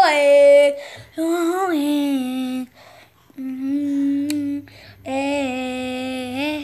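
A voice singing a song phrase of four long held notes at a fairly steady pitch, with short breaks between them.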